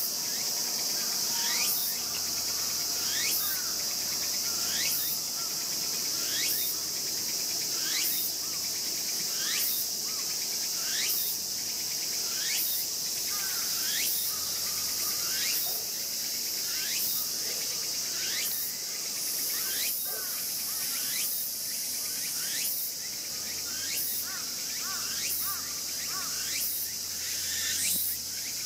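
Japanese raccoon dog (tanuki) cub crying: a short, sharply rising squeal repeated about every second and a half, over a steady high chorus of crickets.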